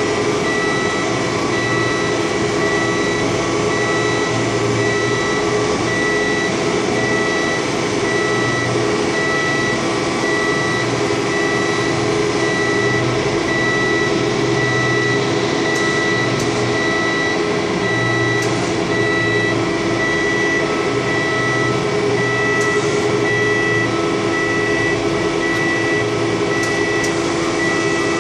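Articulating boom lift raising its work platform: its drive hums steadily while the motion alarm beeps at an even pace, with a few faint clicks in the second half.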